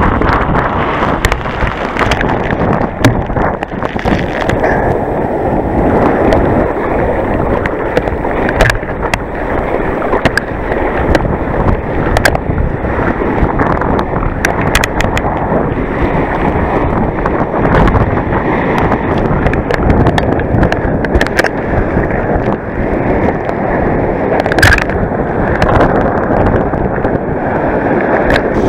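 Sea water splashing and churning around a kayak in choppy waves, with wind rumbling on the microphone. Scattered sharp ticks run through it.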